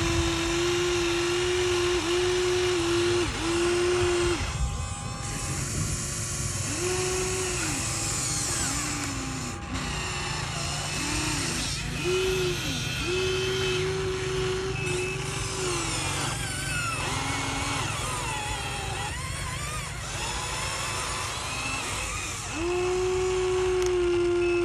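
Small electric motors of a radio-controlled excavator whining in short spurts that start and stop many times, the pitch sagging as each movement loads the motor.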